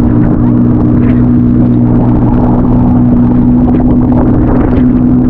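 Boat engine running steadily: a loud, constant drone that holds one pitch.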